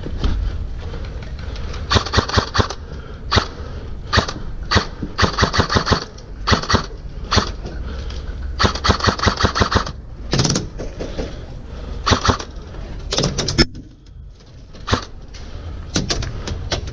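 Airsoft rifle firing in repeated bursts of rapid clicking shots, some a single snap, others strings of a second or more.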